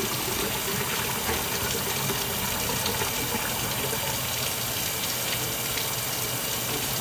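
Kitchen faucet running steadily, a continuous rush of water into the sink.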